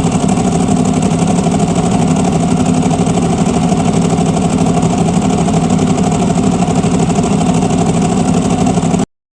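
Stock Ducati 1098 S 90-degree L-twin idling steadily, its dry clutch rattling, heard from inside the rider's helmet. The sound cuts off suddenly near the end.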